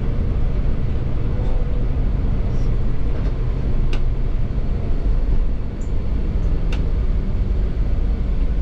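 Scania K360iB bus's diesel engine running, a steady low rumble, with a couple of faint clicks about four and seven seconds in.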